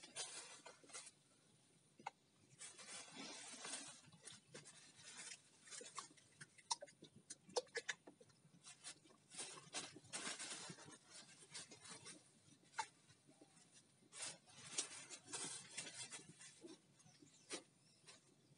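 Faint handling noise: irregular rustling and scraping with scattered small clicks.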